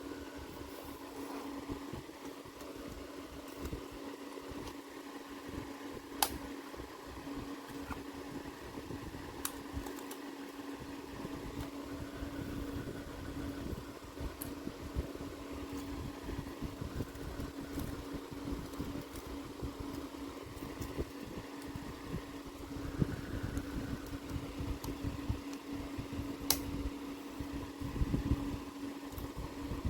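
Steady mechanical hum with one constant low tone, broken by three isolated sharp clicks.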